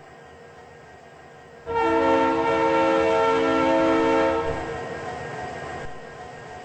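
Train horn sounding one long chord of several steady notes, starting about two seconds in and lasting nearly three seconds, then fading away.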